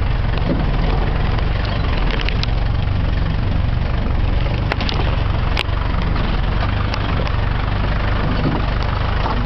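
A jeep's engine running steadily, an even low rumble with no change in revs, heard from inside the vehicle. Three short, sharp clicks or knocks come through in the middle.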